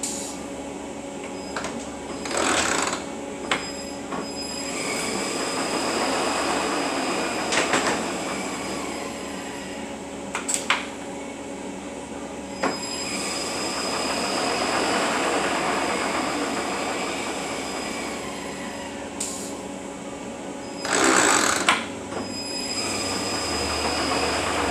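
Repaired Eaton Fuller RTLO-20918B 18-speed truck transmission running on a dyno test stand: a steady mechanical run with a constant whine, swelling and easing in loudness. Several sharp clicks and two hissy bursts about a second long, one near the start and one near the end, break through it.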